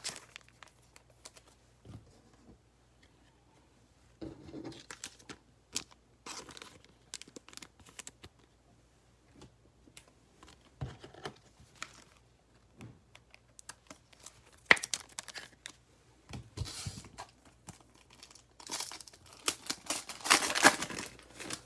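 Foil trading-card pack, a 2020 Panini Mosaic NFL pack, being handled and torn open by hand, the wrapper crackling and crinkling in scattered short bursts. The longest, loudest tearing comes near the end.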